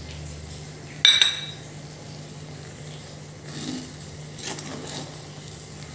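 A sharp metal clink against an iron kadai about a second in, ringing briefly, followed by softer spoon scrapes and knocks as thick tamarind pickle and ground spice are stirred in the pan.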